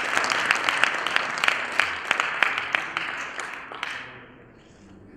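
Audience applauding, many hands clapping at once, then tapering off and dying away about four seconds in.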